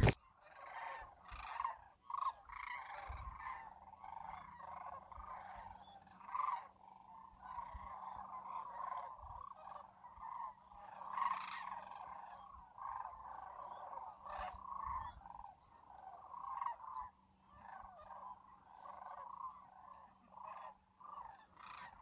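A large flock of sandhill cranes calling in flight, many overlapping calls merging into a continuous chorus.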